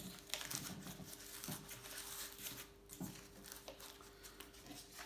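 Painter's masking tape being peeled off a painted frame and masking paper crinkling: faint, irregular crackles and rustles with a few sharper clicks.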